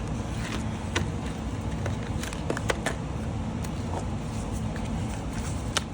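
A few sharp clicks and light knocks as nail products and tool cases are handled and set down on a desk, over a steady low background hum.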